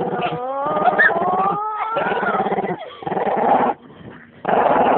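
A dog growling over a bone it won't give up, a sustained rumbling growl with a rising whine over it in the first couple of seconds; the growl breaks off briefly near the end and starts again: resource guarding.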